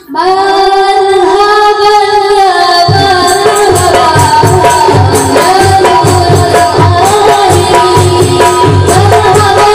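Salawat music starts abruptly: a held, sung melody, joined about three seconds in by a steady hand-drum beat.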